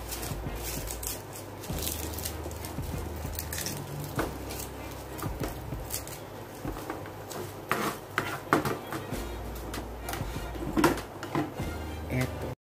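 Irregular clicks and knocks of a kitchen knife and garlic cloves on a plastic cutting board while the cloves are peeled, with a few louder knocks in the last few seconds.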